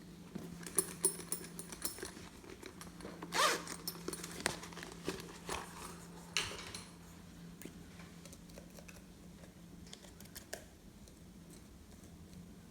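Slime and craft materials being handled and mixed: a run of small clicks and crackles through the first seven seconds, with one louder swish about three and a half seconds in and a few ticks later on, over a faint steady hum.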